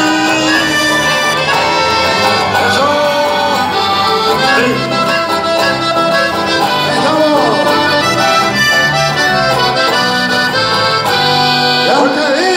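A live chamamé band playing: two accordions carry the melody over acoustic guitar and electric bass, with a steady beat.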